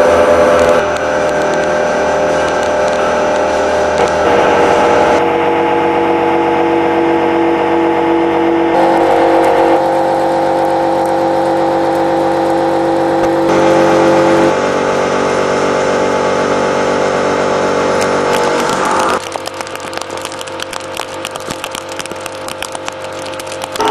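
Kyocera MSR heavy-milling face cutter with carbide inserts cutting metal on a CNC machining centre: a loud, steady whine with several held pitches. The pitch shifts abruptly a few times as the passes change cutting speed and feed. Near the end it turns quieter, into a dense crackle of fine clicks.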